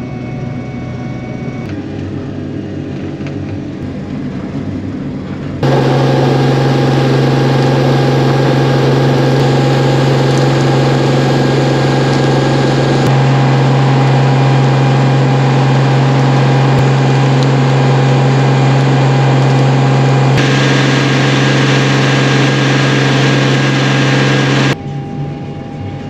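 A vehicle engine running at a steady speed, heard in several abruptly cut stretches; it is much louder from about six seconds in until shortly before the end.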